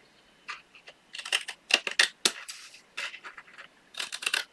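Scissors snipping thick cardstock: a string of short, crisp snips as a small angled miter cut is trimmed off a tab.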